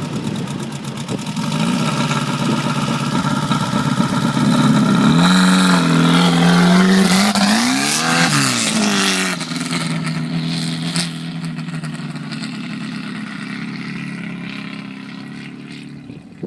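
Sand car engine, freshly rebuilt and running on only 6 psi of boost while being warmed up. It runs and revs, grows loudest about halfway through with its pitch rising and falling, then settles and fades away.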